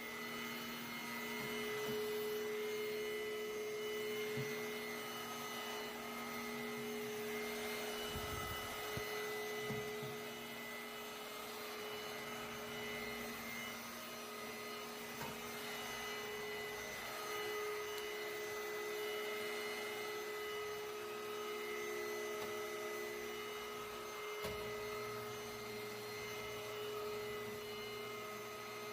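Steady hum made of several held tones over a soft noise bed, with no rhythm, and a faint low thump now and then.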